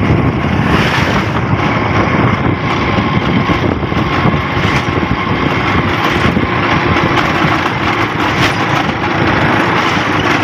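Motorcycle running at road speed over a potholed road, its chain cover rattling as the bike jolts over the potholes.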